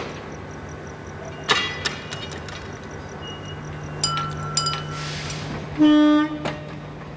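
Railway ambience: a steady low hum with scattered metallic clanks and clicks, a brief high tone around four seconds in, then a short, loud train horn toot about six seconds in.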